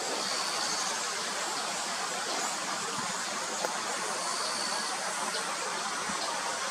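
Steady rushing background noise, with two faint, brief high-pitched chirps: one about half a second in and one about four and a half seconds in.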